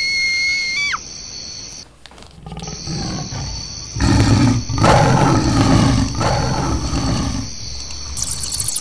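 A long, rough animal roar, loudest from about four seconds in and fading near the end. In the first second a steady high whistling tone drops in pitch and stops.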